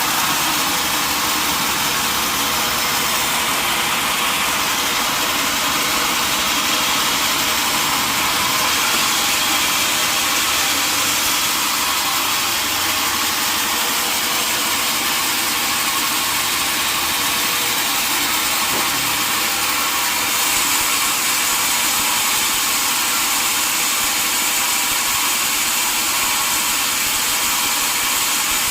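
Sawmill machinery running steadily, a loud even mechanical noise that holds without change.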